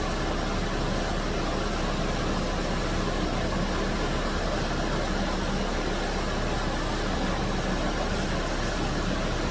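Steady machinery hum and hiss at an even level, with no sudden sounds: constant background noise of the shop.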